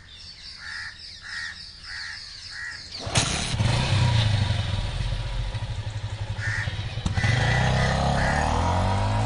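Crows cawing repeatedly, then a motorcycle engine starts abruptly about three seconds in and runs loudly, its pitch rising and falling as it rides past close by; the crows keep calling over it.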